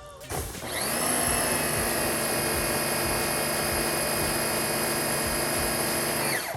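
Electric blower motor spinning up to a steady high whine, running, then winding down near the end, used for drying the boat after washing.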